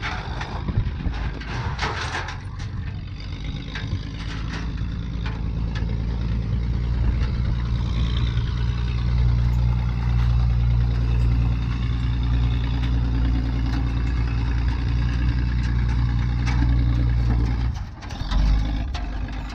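Ford F600 dump truck engine running steadily at idle, with a few knocks in the first couple of seconds; the engine sound breaks off near the end.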